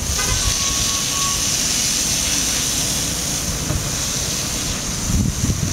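Garden hose spray nozzle hissing steadily as its jet of water hits the pavement, coming on abruptly at the start, over a low rumble. A brief thin steady tone sounds about half a second in and lasts about a second.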